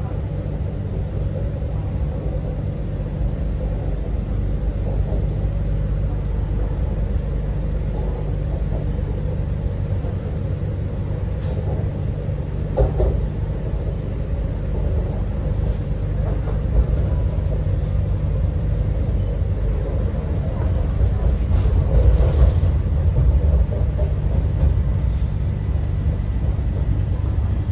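Steady low rumble of an MTR C-train metro car running at speed, heard from inside the passenger car, with occasional faint knocks. The rumble swells louder about 22 seconds in.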